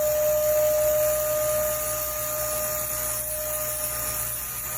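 A 2000-watt, 25-litre vacuum cleaner running steadily as it sucks up loose soil through its hose, with an even, high-pitched whine over a rushing hiss.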